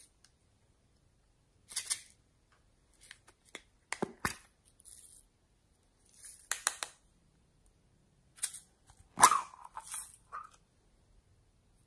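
Slime being squeezed and poked by hand: clusters of short clicks, pops and squishes with silent gaps between them. The loudest squish comes about nine seconds in, with a brief squeak.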